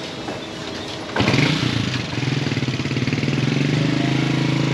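A motorcycle engine starts about a second in, then idles steadily.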